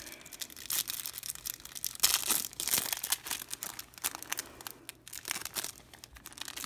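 Plastic wrapper of a baseball card pack being torn open and crinkled by hand, in irregular crackling rustles that are loudest about two seconds in.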